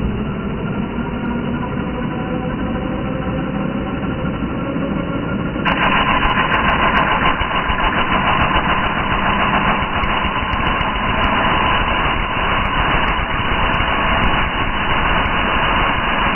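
Angle grinder running with a steady whine, then about six seconds in its cutting disc bites into a metal rod and the sound turns suddenly louder and harsher as it cuts through the steel.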